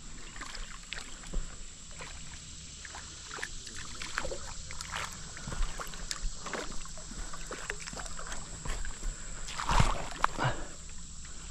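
Irregular splashing and sloshing of shallow river water, the loudest splash about ten seconds in, as a hooked smallmouth bass is played and landed in the shallows.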